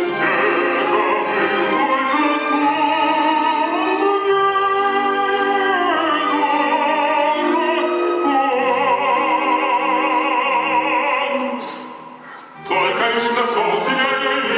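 An operatic voice singing with vibrato over orchestral accompaniment. A long held note fades about twelve seconds in, and the music comes back in strongly a moment later.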